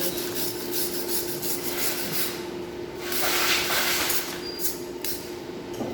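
Electric arc welding on aluminium: a crackling, sputtering hiss over a steady hum, growing louder and hissier for about a second around three seconds in.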